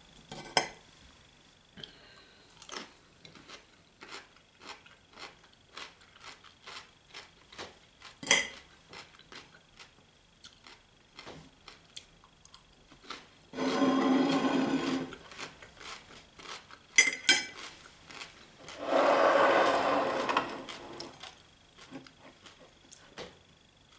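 Close-up eating sounds: a run of small clicks and mouth noises with a few sharper knocks, and twice a louder rasping noise lasting a second or two, just past the middle and again about five seconds later.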